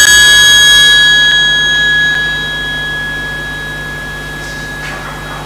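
A single bell stroke ringing out, its clear high tone with several overtones fading slowly over about five seconds.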